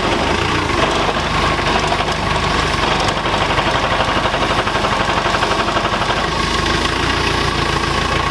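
JCB telescopic handler's diesel engine running steadily with a clattering beat, working the hydraulics as the boom lifts a bucket of coal.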